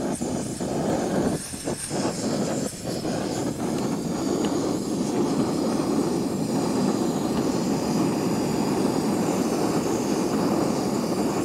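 Snow Peak GigaPower canister stove burning at full flame under a saucepan of water heating toward the boil: a steady rushing noise.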